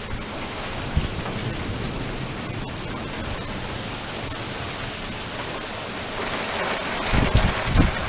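Heavy thunderstorm rain falling steadily, growing louder about six seconds in, with low rumbling surges near the end.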